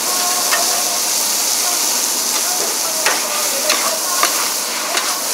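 Char kuey teow noodles and bean sprouts frying in a large wok: a loud, steady sizzle, with the metal spatula knocking against the wok several times.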